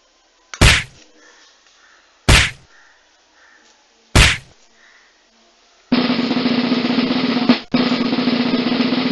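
Three sharp slaps of a hand hitting a sleeping dog, a second or two apart, followed by a loud continuous rattling noise lasting about three and a half seconds, broken once briefly.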